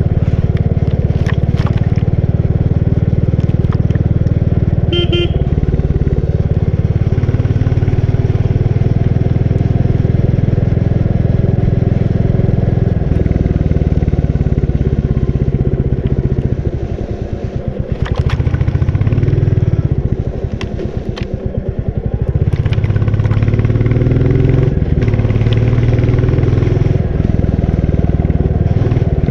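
Royal Enfield Bullet 350 single-cylinder engine running under way, heard from the rider's seat. The engine eases off twice in the second half and then pulls again, and there is a short beep about five seconds in.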